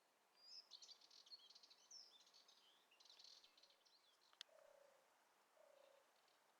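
Small birds faintly chirping and twittering in quick high notes for about three seconds. A single sharp click comes about four seconds in, followed by two short, lower notes.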